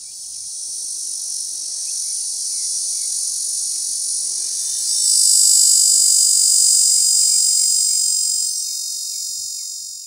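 Cacama valvata (cactus dodger) cicada calling: a continuous high-pitched buzzing song that grows louder about five seconds in.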